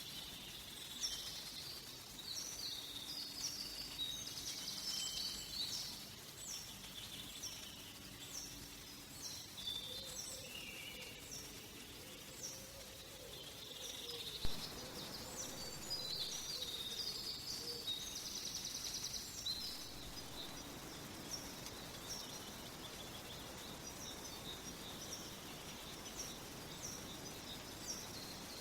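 Forest ambience: small birds singing and calling over a soft steady hiss, with a short, steeply falling high chirp repeated about once a second among buzzy high trills. A single sharp click stands out about halfway through.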